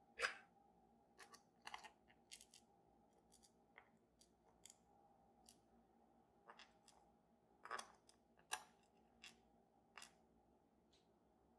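Faint, scattered clicks and light taps of small objects being handled. There are about a dozen in all, the loudest just after the start and twice around eight seconds in.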